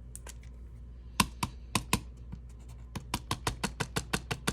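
Paint pen clicking as it is worked to get the paint flowing: a few scattered clicks, then a fast even clicking of about six a second from about three seconds in.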